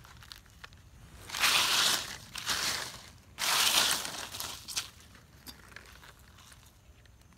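Dry fallen leaf litter crunching and crackling in two loud bursts of about a second each, followed by a few faint crackles and rustles.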